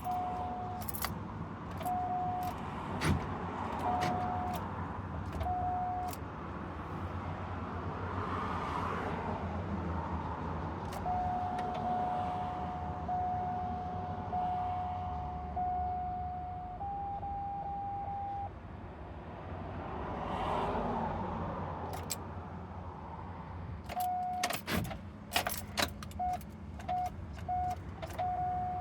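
Chevrolet Express van's warning chime beeping on and off, at times holding one steady tone, over a low steady hum, with a cluster of sharp clicks and keys jangling near the end as the van is tried and fails to start.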